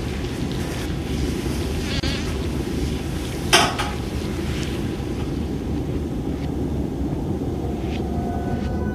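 Steady low rumbling drone, with one short sharp hiss about three and a half seconds in.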